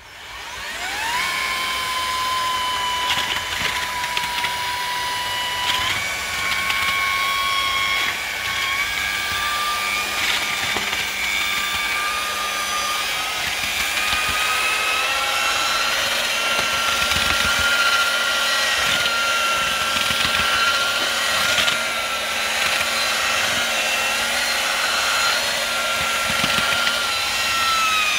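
Eibenstock handheld paddle mixer's electric motor spinning up and running steadily, its spiral whisk churning quicklime and sand with water in a galvanised metal dustbin during hot-mix slaking. The motor's whine steps up in pitch a few times, with occasional knocks.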